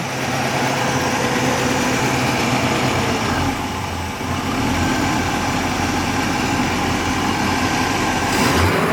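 350 V8 engine of a 1952 Ford F1 pickup idling steadily, running really nice.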